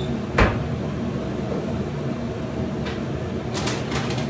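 Kitchen cabinet door being opened, with a sharp knock about half a second in and lighter clicks and knocks near the end, over a steady low hum.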